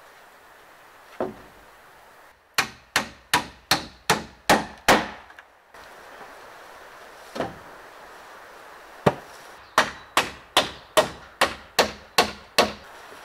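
Hammer driving nails into the timber of a wooden house frame: single blows, then two runs of quick, sharp strikes at about three a second.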